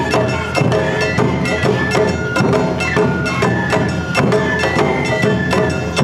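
Awa odori festival music from a narimono ensemble: drums and a kane hand gong striking a brisk, steady beat, with a bamboo flute playing held melody notes over them.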